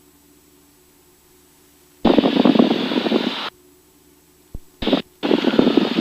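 Aircraft radio in a Cessna 172's headset audio, cutting in with a burst of reception about two seconds in and twice more near the end, each switching on and off abruptly. Under them runs a faint steady hum of the engine through the intercom.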